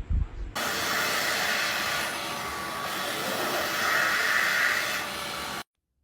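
A loud, steady hiss that starts suddenly, swells slightly near the end, and cuts off abruptly after about five seconds.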